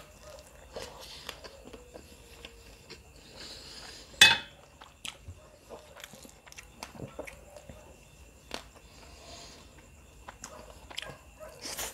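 Close-up mouth sounds of a person eating rice and chicken by hand: chewing with scattered wet clicks and lip smacks, and one much louder sharp smack about four seconds in.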